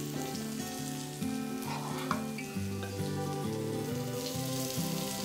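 Oil sizzling in a frying pan as stuffed bitter gourds fry and spiced masala is spooned in, with a spoon scraping the pan a few times about two seconds in. Soft instrumental background music plays under it.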